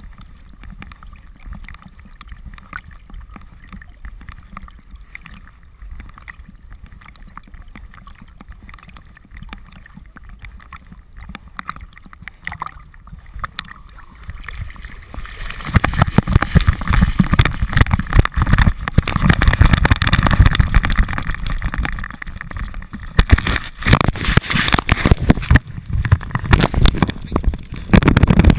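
Water sloshing and gurgling around a GoPro strapped to a swimming dog's back, low and muffled at first, then loud, rough splashing and buffeting against the camera housing from about halfway through.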